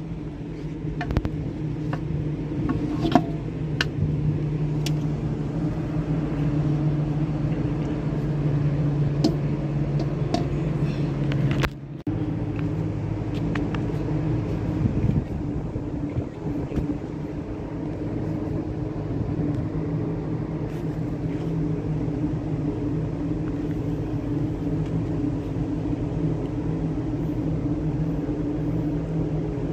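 Steady low hum of a ship's engines and machinery, heard on the open deck, with a few light knocks in the first seconds as the compass hood is handled.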